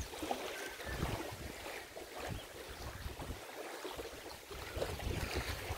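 Wind buffeting the microphone in uneven gusts, with small lake waves lapping at the shore.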